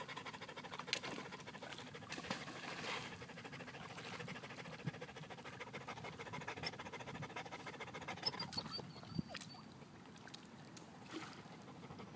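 Faint lapping of shallow lake water at a stony shore, with scattered small clicks and splashes of stones being picked up from the water and thrown.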